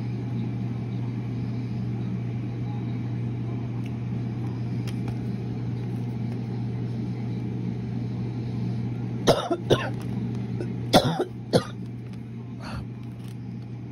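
A person coughing: two sharp coughs about two-thirds of the way in, then three more a second later, over a steady low hum.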